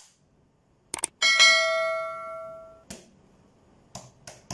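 Two quick mouse-click sounds followed by a single bright bell ding that rings out and fades over about a second and a half: the sound effect of a subscribe-button animation clicking and ringing its notification bell. A few soft clicks near the end.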